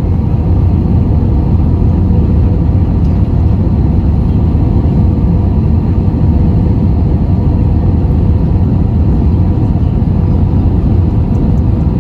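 Steady low roar of jet engines and rushing air inside the cabin of an Airbus A320-family airliner descending on approach with its flaps extended, with a faint steady hum above the rumble.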